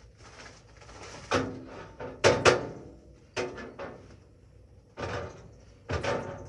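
Clunks and clatters of hard objects being handled and set down, in about five separate bursts. Some carry a short metallic ring, and the loudest comes a little before the middle.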